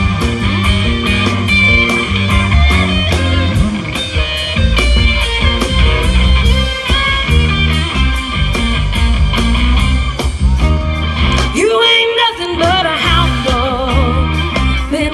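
A live rock band plays an instrumental stretch on electric guitars, bass and drums over a steady beat. About twelve seconds in, the bass and drums drop out briefly under a held, wavering note before the full band comes back.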